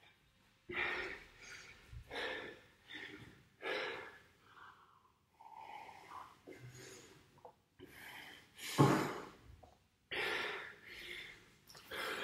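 A man breathing hard and gasping for air while he recovers from a hard workout interval, with a breath about once a second. The breathing is quieter in the middle, and there is one loud exhale about nine seconds in.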